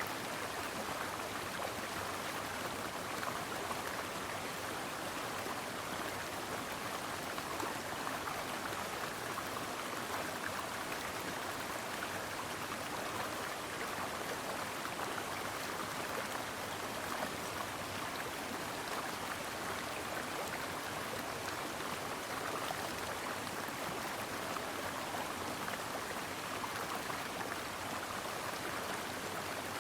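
A stream flowing steadily over rocks, an even rushing and burbling of running water.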